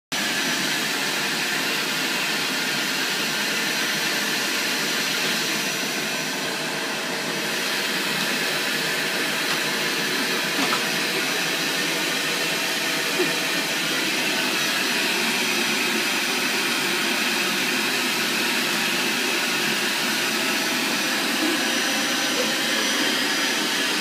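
Vacuum cleaner running steadily as its floor nozzle is pushed over carpet, with a couple of light knocks around the middle.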